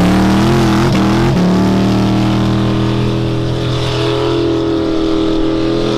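Racing car engine at high revs under hard acceleration. Its pitch climbs steeply at the start, drops with a gear change about a second and a half in, then holds a steady high note.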